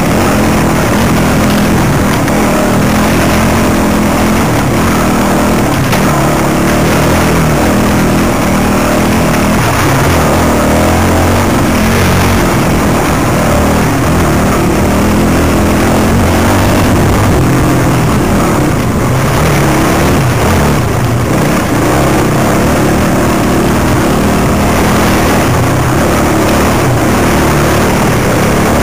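Enduro motorcycle engine running hard with the revs constantly rising and falling as the bike works along a rough, muddy trail.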